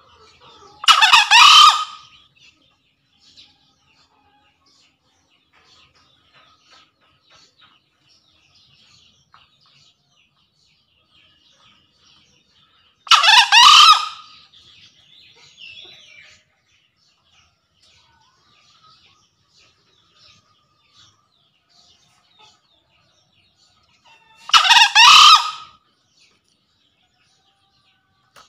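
Male green junglefowl crowing three times, about twelve seconds apart, each crow a short call of about a second: a male's call to challenge rivals. Faint high chirps between the crows.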